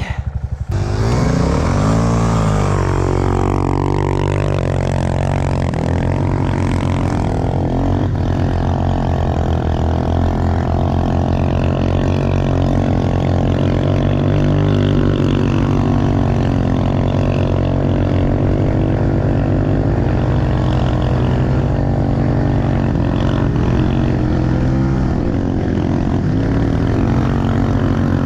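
Pit bike engine running close by, revved up and down in the first few seconds, then held at a steady high note with small rises and dips as the bike rides on.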